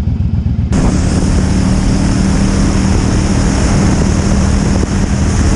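Motorcycle engine running at road speed with heavy wind rush on the microphone; the rushing noise, with a steady engine tone under it, starts abruptly just under a second in and holds.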